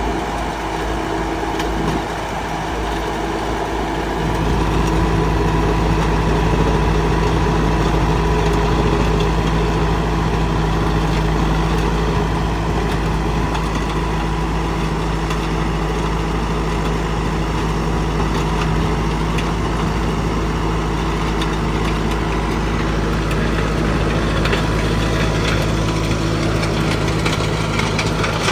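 Stone-crushing machine running with a steady engine drone, growing louder about four seconds in and then holding steady.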